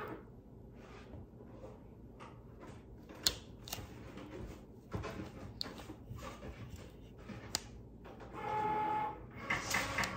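Weeding hook picking and peeling excess heat-transfer vinyl off its carrier sheet: light scratching and peeling with a few sharp ticks. A brief pitched tone sounds near the end.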